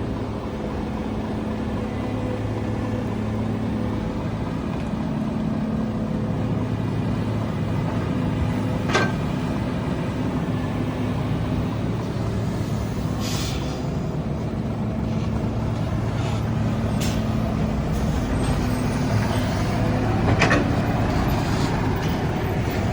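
Heavy diesel engine of road-building machinery running steadily at an even pitch. A few short sharp sounds cut in: one about nine seconds in, then others around thirteen, seventeen and twenty seconds.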